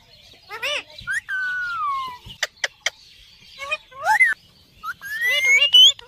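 Indian ringneck parakeets calling: short chirps, a long falling whistled call early on, and a longer rising call near the end, with sharp clicks in between.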